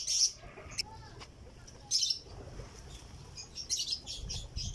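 Birds chirping in short bursts of high calls, near the start, about two seconds in, and again near the end.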